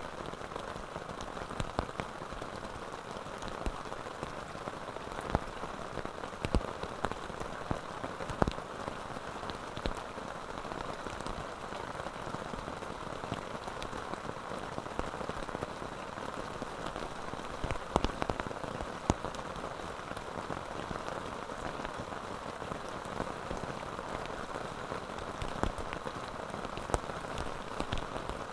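Steady rain falling on a tent and tarp, with scattered sharp taps of single drops.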